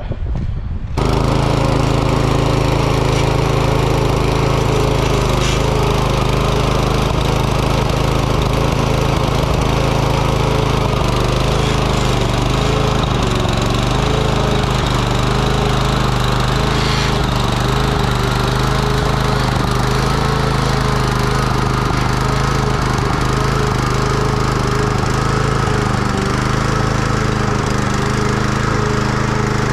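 Bed edger's small engine running steadily under load as it cuts a bed edge through soil, coming in abruptly about a second in.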